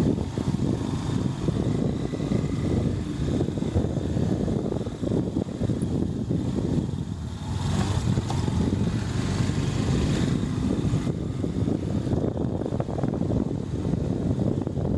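A vehicle's engine running steadily as it travels over a rough off-road track, with a dense rumble throughout.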